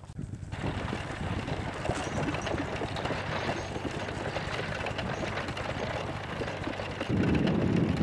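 Reindeer-drawn wooden sled moving over snow: a steady crunching, scraping hiss of runners and hooves on snow, getting louder about seven seconds in.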